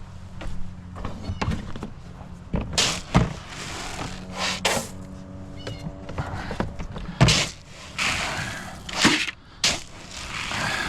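Repeated knocks, thuds and clatter of plastic feed buckets and a feeder being handled and set down, with short rushes of poured feed, over a steady low hum.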